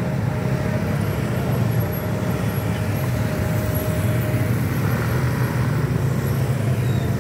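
Many motor scooters and small motorcycles running at low speed as they cross the tracks in a steady stream, a dense, even mix of engine noise.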